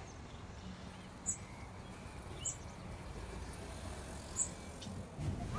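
Outdoor street ambience: a steady low rumble of distant traffic, with three or four short, very high chirps a second or two apart.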